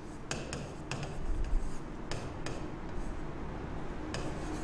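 Stylus writing on the glass face of an interactive touchscreen board: irregular sharp taps as the pen tip meets the screen, with faint rubbing of the strokes between them.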